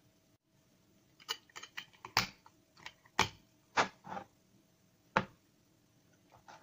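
Glass jar being handled: a run of sharp clicks and knocks, the loudest about two, three, four and five seconds in.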